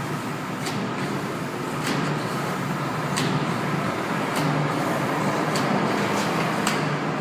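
Steady machine drone with a low hum, and a faint tick about every second and a quarter.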